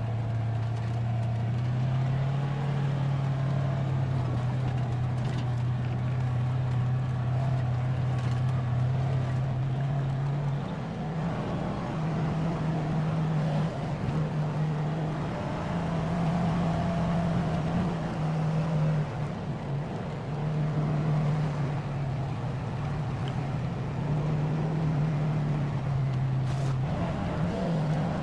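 UTV engine running while driving over rough ground, with a steady low hum that shifts up and down in pitch as speed changes.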